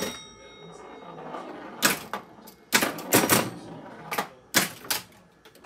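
Electromechanical 1953 Williams Times Square woodrail pinball machine in play: sharp mechanical clacks from its bumpers, flippers and scoring relays, several bunched together in the middle, with a bell ringing and fading away at the start.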